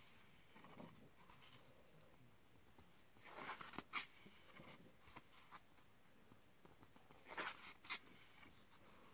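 Paper pages of a paperback colouring book being turned by hand: two papery swishes, about three and a half seconds in and again about seven and a half seconds in, each ending with a sharp flick of the page.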